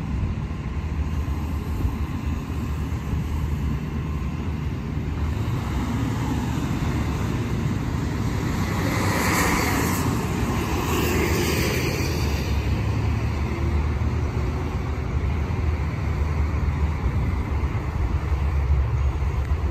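Steady low rumble of road traffic, with a car passing close about nine to twelve seconds in, its tyre and engine noise swelling and then fading.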